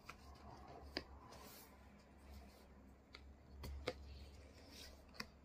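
Faint handling of a cardboard tablet box: light rubbing and sliding against cloth, with a few short taps, the sharpest about a second in, near four seconds and near the end.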